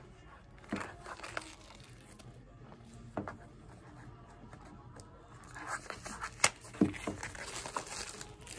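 Plastic shrink-wrap being picked at and peeled off a cardboard box: a few scattered sharp clicks at first, then denser crinkling and tearing of the film from about five and a half seconds in, with two sharp cracks soon after.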